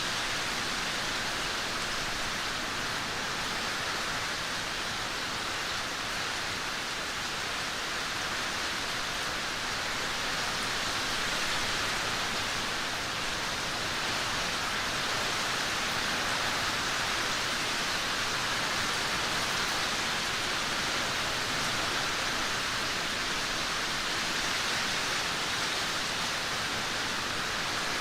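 Steady rainfall, an even hiss of drops with no thunder or other events.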